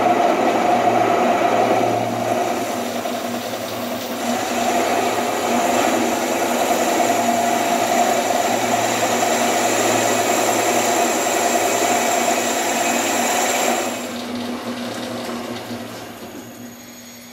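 Metal lathe running under a heavy roughing facing cut, the tool steadily cutting across an aluminium casting's flange. About three-quarters of the way through, the cut ends and the lathe winds down to a stop.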